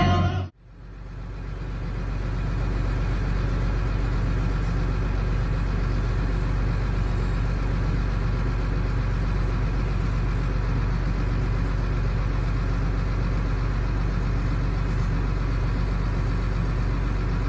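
A vehicle engine running at a steady idle: an even hum that fades in over the first couple of seconds, then holds unchanged.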